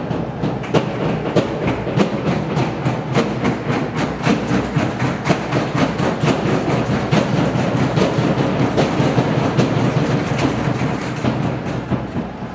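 Rhythmic soundtrack: a dense, noisy bed with sharp beats about three times a second, easing off near the end.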